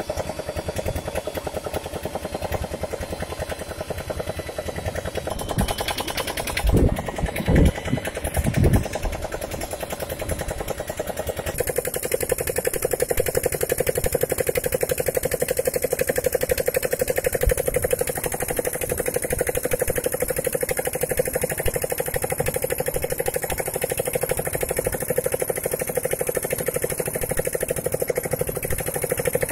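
Electric diamond core drill on its rig stand running steadily while it water-cools and cuts a core from a concrete pavement slab. A few loud low thumps come about seven to nine seconds in, and the drill's sound changes about eleven seconds in, then runs on steadily.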